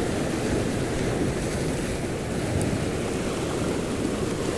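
Steady wash of sea waves on the shore, with wind rumbling on the microphone.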